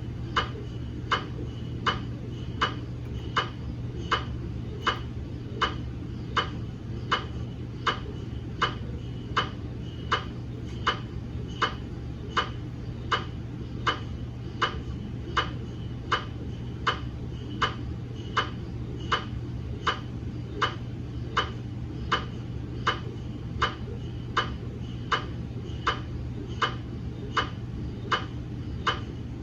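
GE MRI scanner running a quality-assurance scan sequence: its gradient coils make an evenly spaced knocking, a little under two sharp ticks a second, each with a thin high ring. A constant low hum sits underneath.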